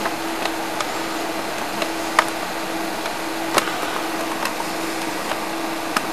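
Steady hiss with a low steady hum, broken by a few scattered faint clicks.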